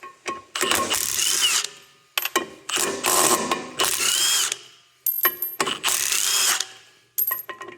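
Cordless power tool run in repeated bursts of about a second, its motor whine rising and falling in pitch each time, with short metallic clicks between bursts, as it spins out the bolts holding a loader's flywheel drive coupling.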